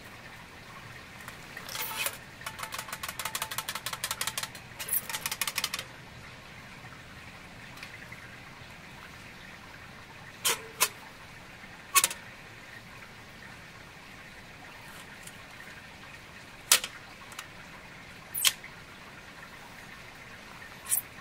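Folding metal Firebox stove being handled and assembled. A rapid rattling run of clicks lasts a few seconds, followed by single sharp metallic clicks at intervals as its panels are fitted together.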